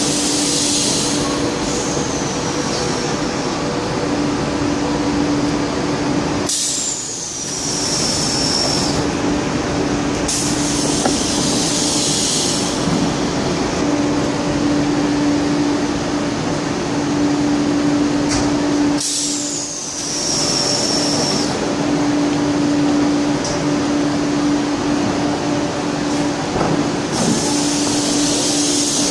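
Zürich S-Bahn double-deck train standing at the platform with its doors open: a steady hum, with several bursts of compressed-air hissing, two of them (about 7 and 19 seconds in) starting with a whistle that falls in pitch.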